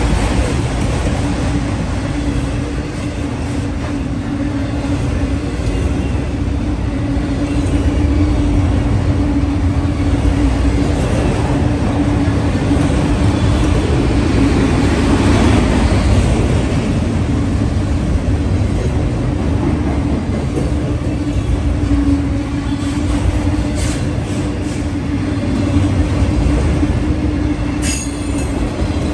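CSX freight train of autorack cars rolling past: a steady, loud rumble and clatter of wheels on rail, with a steady low tone running through it. A couple of sharp clicks come near the end.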